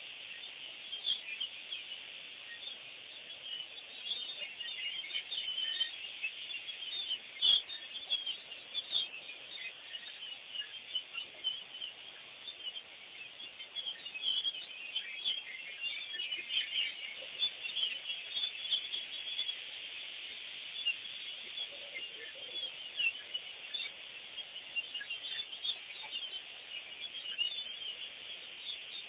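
A dense chorus of many birds chirping and calling continuously, their calls high and thickly overlapping. One sharp click about seven seconds in.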